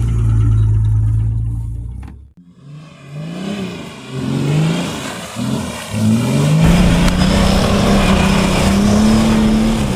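Off-road 4x4's engine running steadily, then cutting out abruptly about two seconds in. It then revs up and down several times and is held at high revs for the last few seconds.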